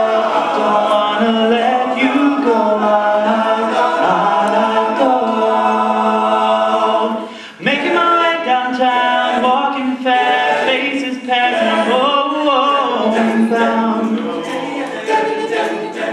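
All-male a cappella group singing close-harmony chords with no lyrics, the voices standing in for the song's instrumental interlude. The sound drops out briefly about seven and a half seconds in, then the voices come back in together.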